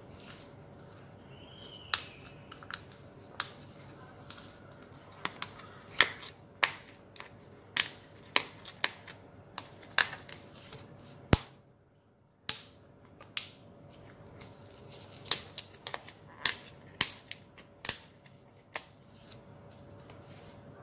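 Sharp, irregular clicks and snaps from hands working crafting materials, often a couple a second, with a short silent break about halfway through.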